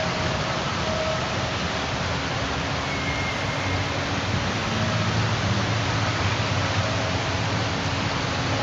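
Muddy floodwater rushing along a street in a fast, heavy torrent: a steady, dense noise of churning water.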